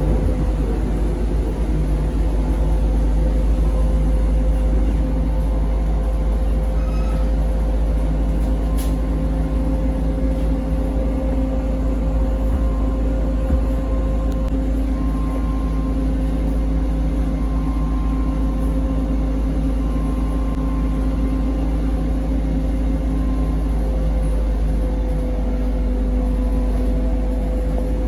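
ZiU-682V-012 trolleybus running along the route, heard from inside the cabin: a steady low rumble with a constant electrical hum over it. A single short click about nine seconds in.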